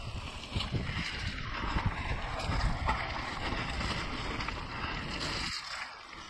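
Wind buffeting the camera microphone over the rumble and rattle of a mountain bike rolling along a dirt trail, with many small knocks; the rumble drops away briefly near the end.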